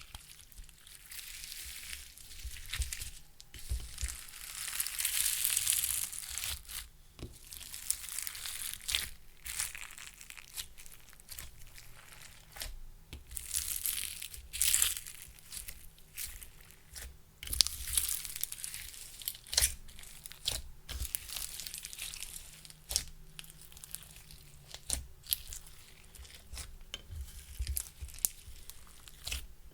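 Clear slime being squished and mixed by hand with crushed makeup and glitter. It gives irregular sticky crackles and sharp clicks, with longer hissy crinkling stretches.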